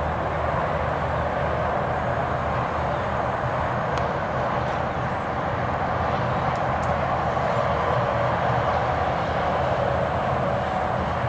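Steady background noise, a low hum under an even hiss, with no distinct event; it sounds like distant traffic or machinery rather than the ducks.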